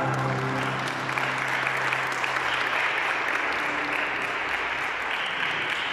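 Hand clapping at the end of a mariachi song, a dense steady patter of many hands. The song's last low note fades out over the first second and a half.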